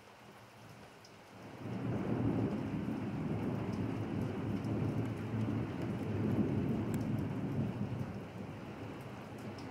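Steady rain falling on pavement, and about a second and a half in a long rumble of thunder rolls in, holding for several seconds before easing off near the end.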